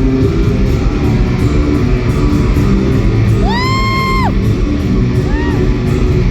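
Live rock band playing loudly: electric guitars, bass and drums. About three and a half seconds in, a loud high note slides up, holds briefly and drops away above the band, and a shorter one follows near the end.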